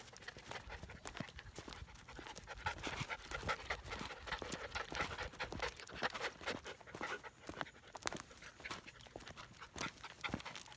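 13-week-old Standard Poodle puppies panting rapidly as they trot on leash, close to the microphone. Many short clicks and scuffs of paws and footsteps on the path run through it.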